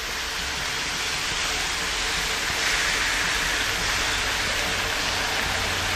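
Beef bacon strips sizzling on the hot steel plate of a tabletop Blackstone griddle, a steady hiss that grows a little louder over the first few seconds as more strips are laid down.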